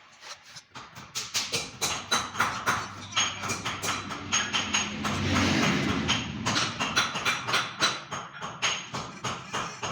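Repeated metal-on-metal strikes, about two or three a second, each leaving a short metallic ring, typical of hammering on a metal part.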